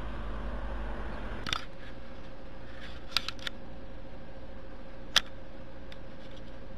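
A few sharp clicks over a steady background hum: one about a second and a half in, a quick group of three a little past three seconds, and the loudest just after five seconds.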